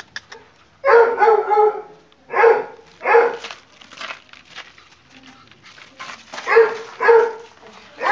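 Pug puppy barking in high-pitched yaps: one longer bark about a second in, then two pairs of short barks.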